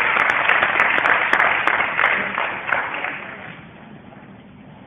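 Audience applauding, the clapping fading away about three seconds in.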